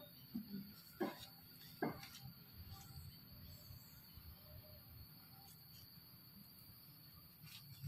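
Faint steady high drone of insects, with two or three short sharp sounds in the first two seconds.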